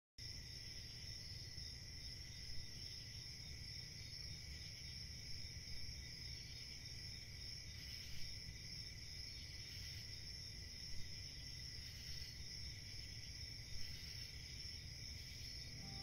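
Faint outdoor ambience: a steady, high insect chorus trilling without a break over a low rumble, with a soft tick every few seconds.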